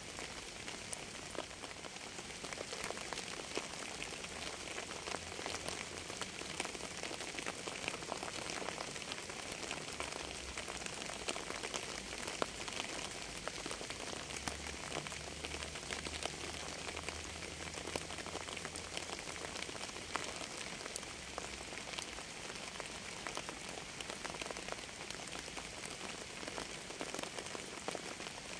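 Steady rain falling, a dense hiss of countless individual drops ticking. A faint low rumble sits underneath for a stretch in the middle.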